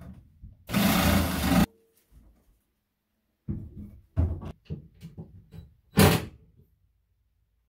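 Kitchen installation work: a one-second burst of a corded power tool at the countertop's sink cutout, then a quick run of knocks and clunks as a sink is set into the countertop, and a short burst of a power drill at a wall cabinet.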